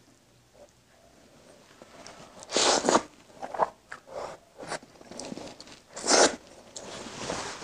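Close-miked eating of rice and egg curry by hand: a quiet start, then short loud mouth sounds of bites and chewing, the loudest about two and a half seconds in and again about six seconds in, with smaller ones between.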